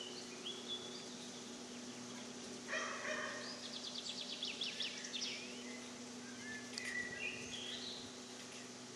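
Birds singing: scattered short chirps and a fast, high trill about four seconds in, over a steady low hum.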